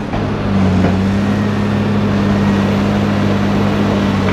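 Komatsu PC300 hydraulic excavator's diesel engine running steadily under load while the machine works its boom and bucket, a constant low drone at one pitch.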